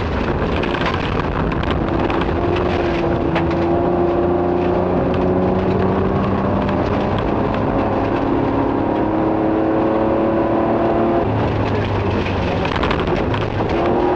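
Nissan Skyline rally car's engine heard from inside the cabin, pulling hard with its pitch climbing slowly in two long runs that break off about six and a half seconds in and again near eleven seconds, as on gear changes. Gravel noise runs underneath, with sharp ticks of stones against the car.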